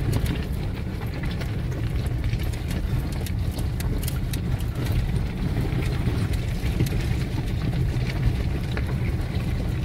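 A vehicle rolling slowly over loose river gravel, heard from inside the cabin: a steady low rumble of engine and tyres, with stones crackling and ticking under the wheels.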